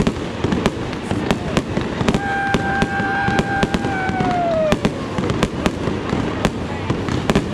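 Fireworks going off: many sharp bangs and crackles in quick succession. About two seconds in, a whistling tone holds steady, then falls in pitch and fades.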